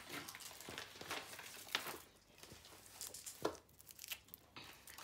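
Foil wrapping on small chocolate eggs crinkling and rustling as it is handled, faint and irregular, with a few sharper crackles.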